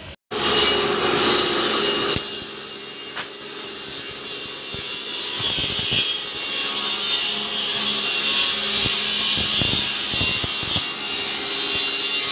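Woodworking machinery in a timber moulding mill running with a steady high hiss like sawing. It cuts in just after the start, and from about five seconds in there are scattered knocks of wooden strips being handled.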